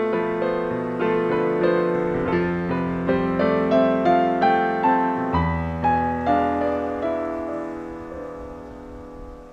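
Piano music: a melody of separate notes over held lower notes, with a deep bass note coming in about halfway, dying away over the last few seconds.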